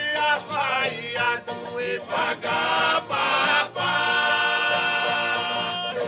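A song: singing over plucked-string accompaniment, the voice wavering through a phrase and then holding one long note for about two seconds near the end.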